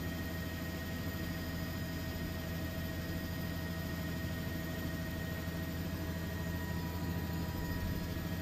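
Steady aircraft drone: a constant low hum with a fixed faint whine above it and even hiss, neither rising nor falling.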